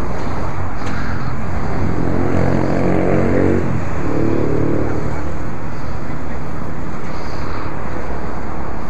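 Motor vehicle engine running, with a steady low rumble. Its pitch rises and falls, once about two to four seconds in and again around four to five seconds.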